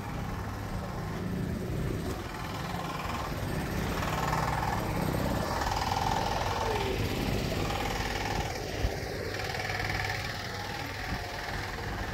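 Busy street ambience: a vehicle engine running nearby with a steady low hum that fades about halfway through, over a wash of traffic noise, and one sharp knock about three-quarters of the way in.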